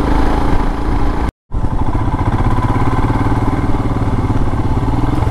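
Royal Enfield Himalayan's single-cylinder engine running steadily at riding speed, with a rapid low pulse of firing strokes. The sound drops out completely for a fraction of a second a little over a second in.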